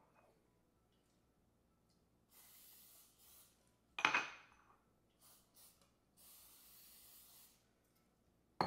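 Aerosol cooking spray hissing in short bursts into ceramic ramekins: a spray of about a second, a brief one, then a longer one of over a second near the end. A sharp knock about four seconds in and another at the very end, as things are set down on the counter.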